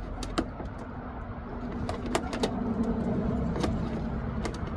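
Rock-light wire being pulled through a drilled hole, giving several short sharp clicks and scrapes over a steady low rumble.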